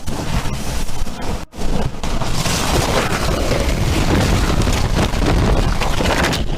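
A tornado striking a house, heard from inside the house: a loud, rushing roar of wind and debris as the building is torn apart. The sound briefly drops out about a second and a half in, then comes back as a dense, steady roar.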